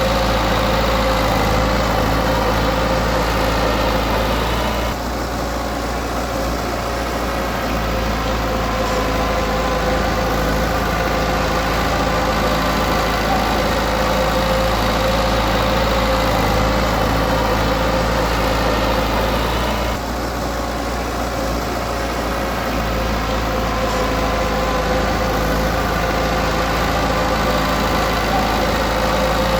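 Bulldozer's diesel engine running steadily, its note dropping briefly about five seconds in and again about twenty seconds in.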